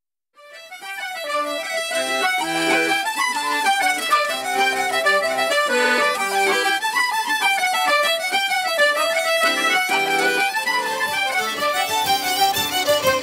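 Irish traditional dance tune led by fiddle over lower sustained accompanying notes, fading in from silence at the start and then playing on at a steady level.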